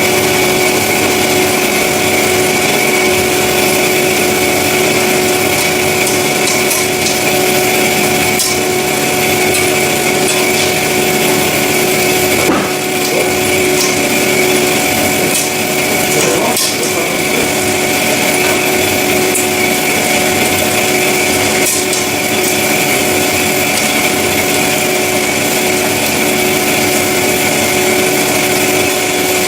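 CORMAK S-200R semi-automatic metal band saw running and sawing metal stock: a steady machine whine of several held tones over a constant hiss.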